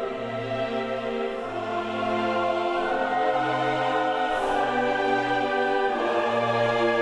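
Background music of long held chords that change every second or two and swell louder about two seconds in.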